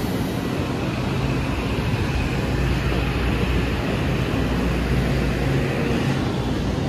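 A train running steadily, a low rumble with a steady low hum under it.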